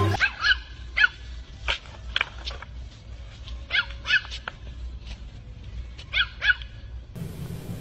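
Small dog barking in a string of short, sharp, high-pitched yaps, often in pairs. Near the end it gives way to a steady low rumble.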